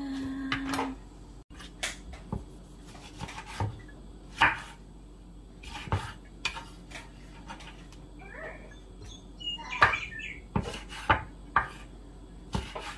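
Kitchen knife slicing Roma tomatoes on a bamboo cutting board: irregular sharp knocks of the blade on the wood, one every half second or so. A short, faint wavering high sound comes about nine to ten seconds in.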